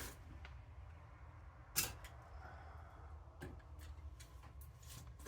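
A few sharp clicks and snips of hand tools stripping and handling electrical wire. The loudest comes about two seconds in, with another just past halfway, over a low steady hum.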